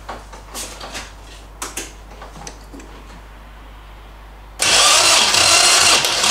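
A few light clicks and knocks, then about four and a half seconds in the MGB's B-series four-cylinder engine starts being cranked over by the starter motor, loud and steady. The spark plugs are out and a compression gauge is fitted, so the engine turns over without firing.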